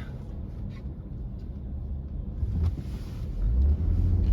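Low rumble inside a moving car buffeted by strong gusty wind, swelling louder about three seconds in.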